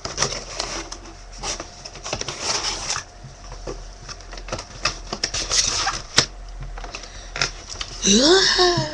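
Gift wrapping being torn open and crumpled by hand, an irregular run of crackles and rustles. A short vocal exclamation comes near the end.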